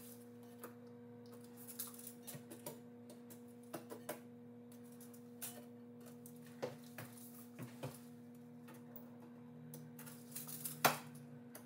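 Scattered light clicks and taps from a tape measure being handled and extended against a porcelain toilet tank, with one sharper click near the end. A steady low hum runs underneath.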